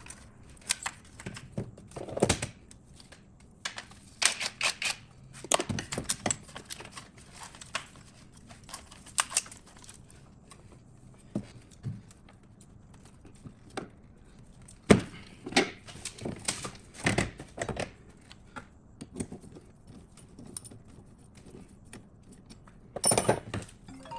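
Irregular clicks, rattles and light knocks of hands unclipping plastic electrical connectors and moving a wiring harness on the engine.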